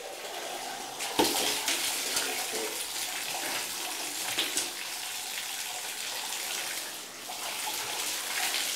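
Water running and splashing in a bathtub, steady throughout, with a sharper splash about a second in.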